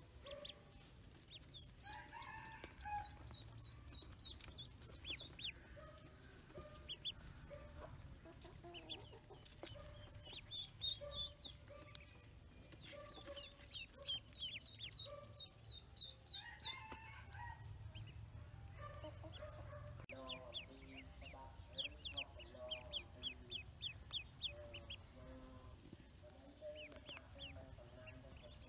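Pekin ducklings peeping: repeated runs of short, high, quickly falling chirps from many birds at once, with some lower calls mixed in.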